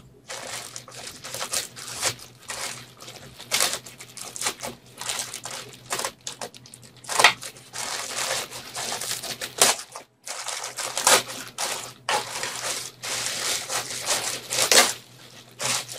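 A shipping package being torn open by hand, its wrapping crinkling and crumpling in irregular bursts, with a brief pause about ten seconds in.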